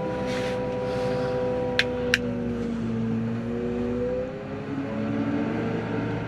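Claas Torion 1511P wheeled loading shovel's diesel engine running under load, its note sagging a little about halfway through and picking up again. Two short sharp clicks about two seconds in.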